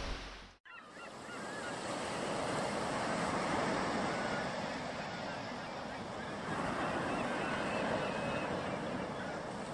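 Surf washing steadily on a beach, swelling twice, with birds giving short calls now and then; it comes in just after a brief silence about half a second in.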